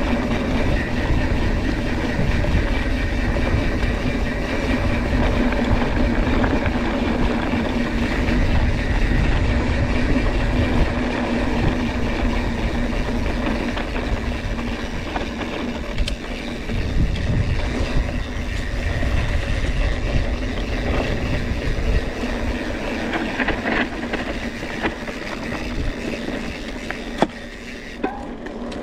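Riding noise from a Scott Spark RC full-suspension cross-country mountain bike on a dry, dusty trail, picked up by an action camera: a steady rumble of tyres over the ground with the bike rattling. It eases off near the end.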